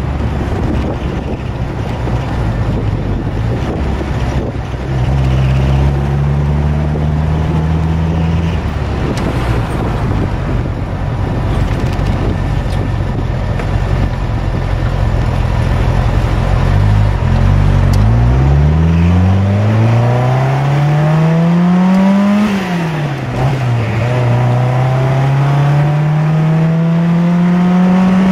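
Fiat 850 Sport Spider's small rear-mounted 903 cc four-cylinder engine, heard from the open cockpit: running at low, steady revs for the first half, then pulling away and revving up through the gears, with the pitch dropping at an upshift about 22 seconds in and again at the very end.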